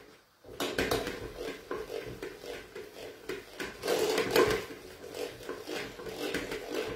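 Metal spoon scraping and clinking against a metal bowl as cooked chopped greens are scooped out, a run of short scrapes and knocks that is loudest about four seconds in.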